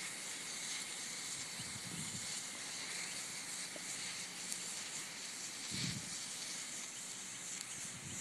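Black snake fireworks burning in a metal pot: a faint, steady hiss with a few soft ticks.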